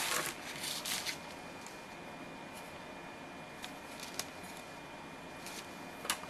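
Faint rustling in the first second, then a few scattered light clicks from small handwork at a tabletop, over a steady low hiss with a faint high whine.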